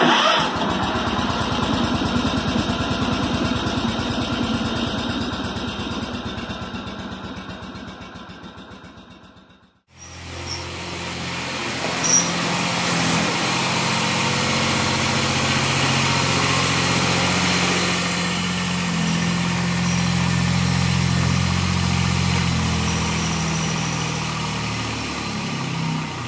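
Cub Cadet 1772 garden tractor's 17 hp Kubota diesel engine running. In the first part the engine runs with a fast, even pulse that fades away at about ten seconds. After a short break it runs steadily with a low hum.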